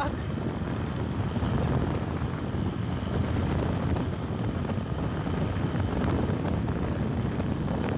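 Motorcycle ridden at speed: a steady low rumble of engine, tyres and wind on the microphone.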